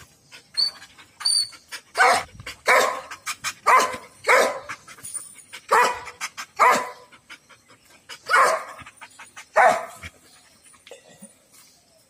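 Dog barking repeatedly: about eight loud barks, roughly one every half second to second and a half, with a few weaker ones around them. The barking stops about ten seconds in.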